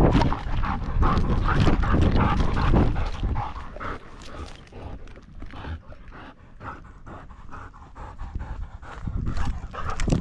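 Dog panting close to a harness-mounted camera. Over the first three or four seconds a loud low rumble of the camera being jostled as she runs covers it, then quicker, quieter panting carries on.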